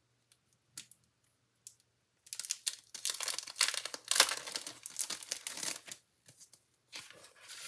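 Clear plastic packaging being crinkled and torn open by hand to free a 3D embossing folder. A few light clicks come first, then about four seconds of dense crackling, with a shorter burst near the end.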